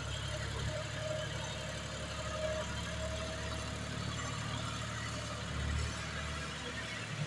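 John Deere loader tractor's diesel engine running steadily at low revs while the tractor drives over loose soil.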